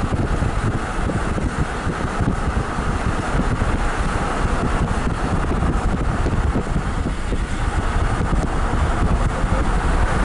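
Steady road noise of a car being driven, heard from inside the car: engine and tyre rumble mixed with wind.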